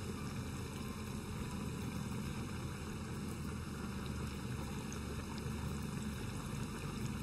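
Hollowed zucchini deep-frying in a pan of hot oil: a steady sizzle and bubble of the oil.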